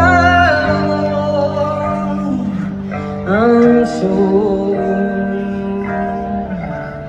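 Live rock band playing a song, heard from the crowd: long held sung notes with vibrato over electric guitar and steady bass notes.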